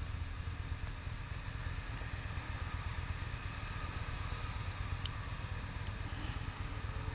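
Yamaha V Star 1300's V-twin engine idling steadily with the bike at a standstill, with cars passing across in front.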